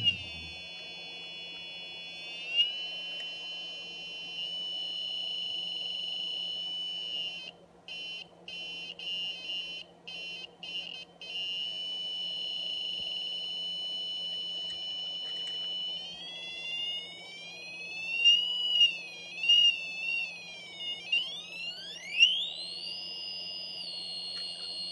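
Arduino Uno driving a small buzzer as a homemade synth: a high-pitched electronic tone, steady at first, then chopped into rapid glitchy stutters for a few seconds. Over the last third it wavers in pitch and glides sharply up to a higher tone as the pitch and LFO knobs are turned.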